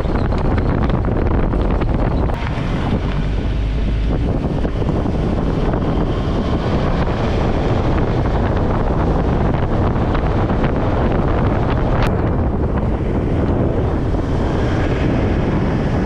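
Heavy wind buffeting the microphone: a steady, loud rush with a strong low rumble, and one brief click about twelve seconds in.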